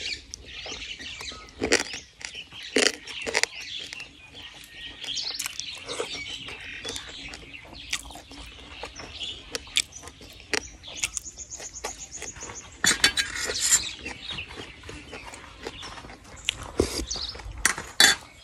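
Birds chirping steadily in the background, with a short fast trill about eleven seconds in. Over them come sharp clicks and smacks of someone eating by hand: chewing and fingers picking through the food.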